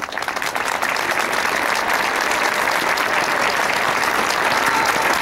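Audience applauding, starting at once and building over the first second to a steady clapping.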